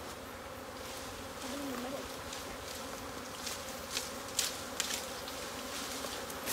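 A swarm of honey bees buzzing, a steady hum, with a brief rise and fall in pitch early on as a bee passes close. A few sharp clicks come about four to five seconds in.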